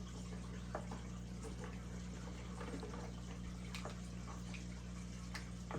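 A few faint, light clicks and taps of small wooden knife-kit parts being handled and fitted together, over a steady low hum.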